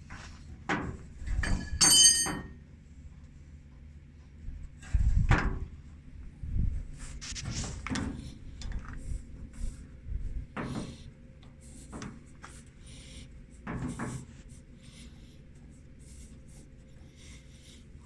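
Irregular knocks, clicks and metallic clinks of hands handling a hydraulic hose and its fitting. There is a brief ringing metal clink about two seconds in and a heavier thump around five seconds.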